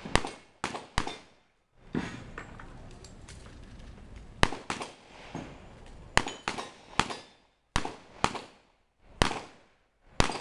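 Revolver shots from two shooters firing in a timed shoot-off: about a dozen sharp reports at uneven intervals, three in quick succession at the start, then a pause of about three seconds before the rest come in pairs and singles.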